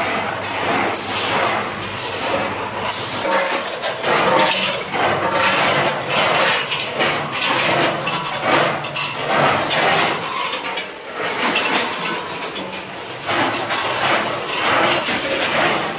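Fried tofu packing line running: the incline conveyor and the multihead combination weigher make a steady machine noise, broken by frequent clattering as tofu pieces tumble and by short bursts of hiss.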